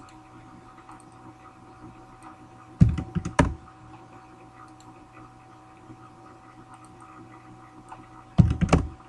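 Computer keyboard typing in two short bursts of quick keystrokes, about three seconds in and again near the end, over a faint steady hum.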